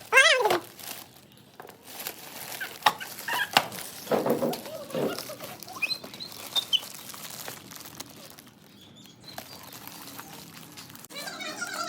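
Packaging rustling and crackling as a toy is unpacked, with scattered clicks and crinkles. It opens with a short, loud, high squeal whose pitch wavers.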